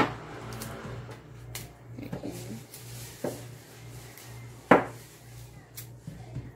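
A small kitchen knife peels and strips the skin from taro stalks over a stainless steel sink. There is quiet scraping and a few sharp knocks, the loudest nearly five seconds in, over a steady low hum.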